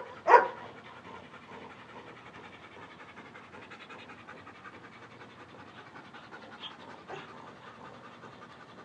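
German shepherd police dog panting steadily and rapidly, winded from protection training. One loud, sharp burst comes about a third of a second in.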